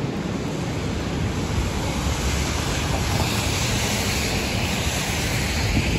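Wind rumbling on the microphone over the steady hiss of a rain-wet city street, with the hiss swelling from about two seconds in and peaking near the end.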